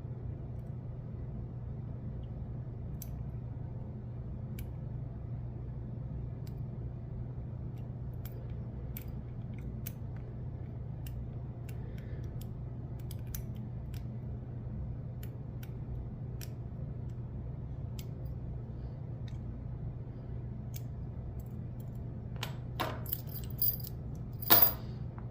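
Lock picks working the pins of a brass padlock: faint, scattered metallic clicks over a steady low hum. Near the end come a few louder metallic clacks as the lock opens.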